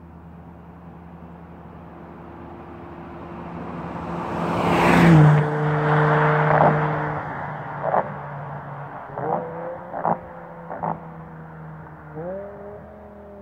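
2008 BMW M6's V10 engine at full throttle, driving past: the sound builds as the car approaches, peaks as it goes by about five seconds in and drops in pitch as it pulls away. Several sharp pops follow, and the engine note rises again near the end.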